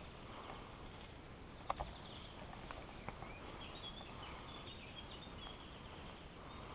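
Faint footsteps on dry leaf litter along a woodland path, with a few sharp clicks, the loudest about two seconds in. A bird chirps a quick run of short high notes around the middle.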